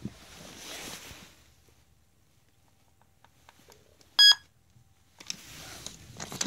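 Tekno robotic Dalmatian toy dog giving one short, loud electronic beep about four seconds in as a button on its back is pressed. Faint clicks come before it, with rustling at the start and near the end.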